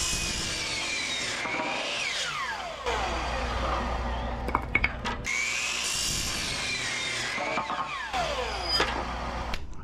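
Compound miter saw cutting through a 2x4 twice. Each time the motor whines up, the blade runs through the wood, and the whine falls away as the blade spins down. A few short knocks come between the cuts.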